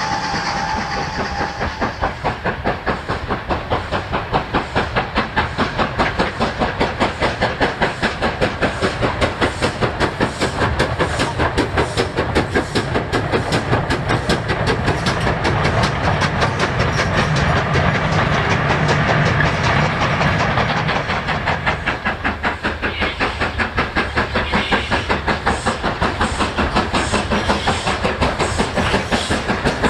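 GWR King Class 6023 'King Edward II', a four-cylinder 4-6-0 steam locomotive, working a passenger train past at speed, its exhaust beating at about four a second over the clatter of the train on the rails. A steady whistle note stops about two seconds in.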